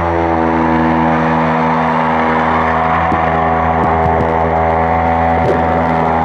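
An electric power tool motor running steadily at constant speed under even load.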